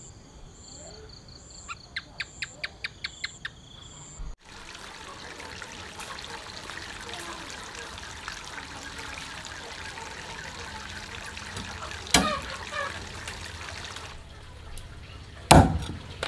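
Insects chirping in steady pulses, with a quick run of about nine taps two to three seconds in. Then a sudden change to a steady trickle of running water, broken by two sharp knocks near the end, the second the loudest.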